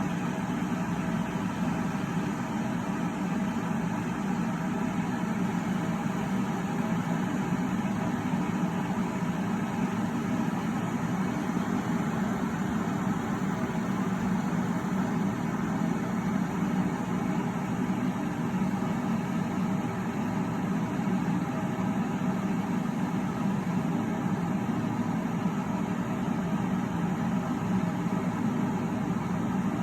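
Electrolux E7K1-6BP electric kettle heating water, a steady even noise from the water as it works toward the boil.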